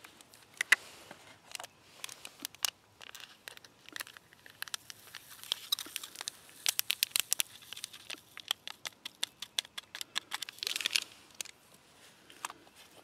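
Crinkling and crackling of a plastic-lined MRE drink-powder pouch being torn open and emptied into a plastic water bottle. A dense run of sharp ticks comes through the middle, and a burst of crinkling comes near the end.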